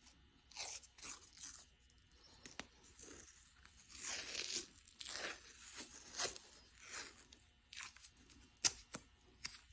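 Adhesive tape being pulled off its roll in irregular rasping strips and wrapped around a thumb and wrist.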